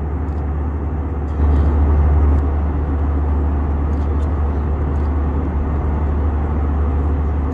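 Jet airliner cabin noise: a steady low drone of the engines and rushing air heard from a window seat, swelling a little louder for about a second near the start.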